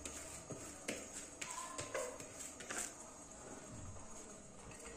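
Quiet kitchen with a few faint light knocks and rustles as someone moves about, handling a plastic bowl.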